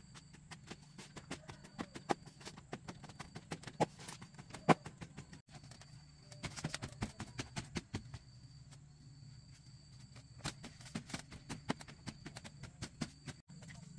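A short wooden-handled hand hoe chopping into loose soil in a bamboo-framed tray, breaking up clods. It makes irregular soft knocks and crumbling clicks, with a few sharper strikes and quick runs of chopping.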